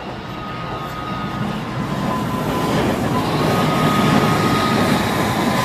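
HO scale model train, a streamlined PRR K-4 steam locomotive pulling passenger cars, running along the track past the camera. Its rumble grows louder as it approaches, with a faint steady high whine over the running noise.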